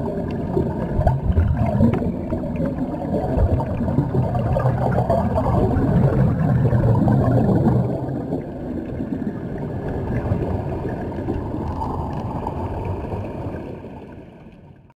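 Muffled underwater noise picked up by an underwater camera: gurgling of air bubbles and moving water over a low rumble, fading out near the end.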